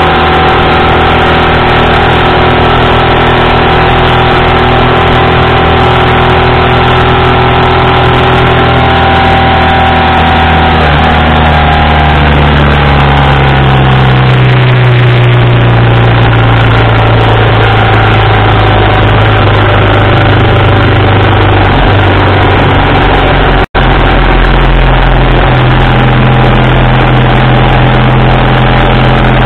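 A 1987 BMW R80RT's air-cooled flat-twin engine running on the move, heard close from its engine bar along with heavy wind noise on the microphone. The engine note changes pitch about ten seconds in and again a little past twenty seconds, and the sound cuts out for an instant near the end.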